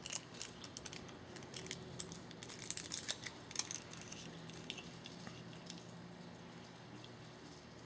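Faint plastic crinkling and clicking as the film seal is peeled back from the juice layer of a prefilled communion cup, handled close to the microphone. The clicks come thickest in the first four seconds, then thin out to a few.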